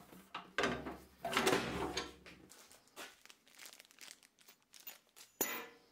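Unpacking noises: cardboard and plastic packaging rustling and crinkling as parts are lifted out of the box, then a plastic bag of hardware being handled with small clicks. A sharp knock comes near the end.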